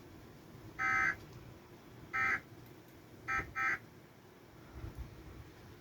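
Emergency Alert System end-of-message data bursts following a tornado warning broadcast: short, harsh digital buzzes, four of them, the last two close together. They mark the end of the alert.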